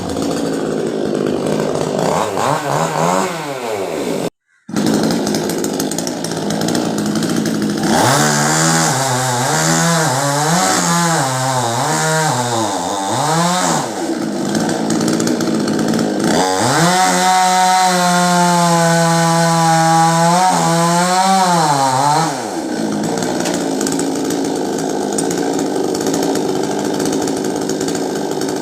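Chainsaw engine running for the whole stretch, its pitch rising and wavering in two long spells of revving, about eight seconds in and again from about sixteen to twenty-two seconds in. The sound cuts out completely for about half a second around four seconds in.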